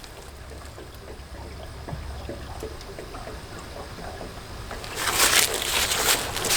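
Tractor engine running with coolant gurgling in the cooling system, which the owner takes as a sign to check the antifreeze. A louder rushing hiss comes in about five seconds in.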